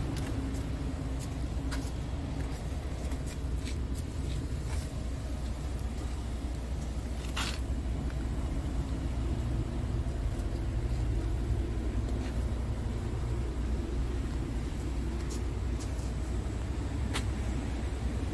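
Scania P380 truck's diesel engine idling with a steady low rumble. A few light clicks are scattered over it, and there is a short hiss about seven and a half seconds in.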